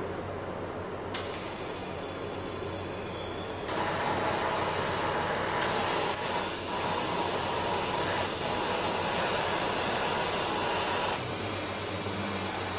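TIG welding arc on a stainless-steel sheet-metal box, giving a steady hiss over a faint electrical hum. The hiss starts abruptly about a second in, shifts in tone a few times, and drops somewhat near the end.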